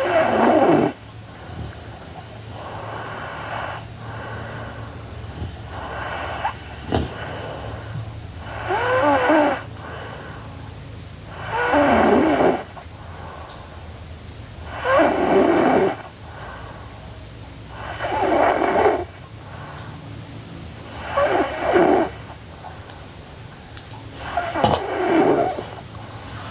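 A sleeping girl snoring: loud, rattling snores on the in-breath, one at the start and then regularly about every three seconds from about nine seconds in, with quieter breathing in the gap before.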